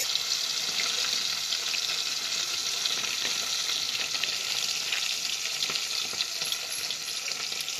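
Hot oil sizzling and crackling in a kadai as fritters deep-fry: a steady, dense hiss that starts suddenly.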